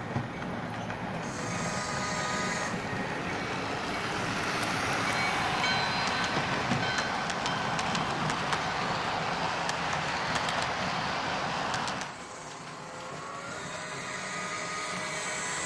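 Model steam locomotive, a Bachmann Spectrum Pennsylvania Railroad K4, running with its train on the layout track: a steady motor whine and wheel noise that grows louder, with light clicks, then drops suddenly about twelve seconds in before building again.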